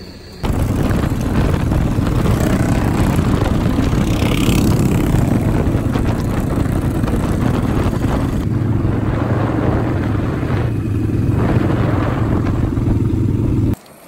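Onboard sound of a riding motorcycle, a custom Yamaha SR single-cylinder, running steadily at road speed with wind rush over it. It starts suddenly just after the beginning and cuts off just before the end.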